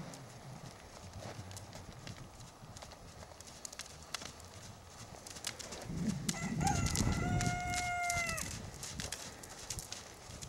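Horse's hooves beating on an arena's sand footing. About six seconds in, a rooster crows once for about two seconds, holding its pitch and then dropping at the end, over a louder low rumble.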